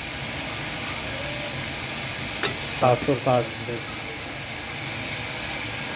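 A steady hiss, with a sharp light click about two and a half seconds in and a couple of brief spoken syllables just after.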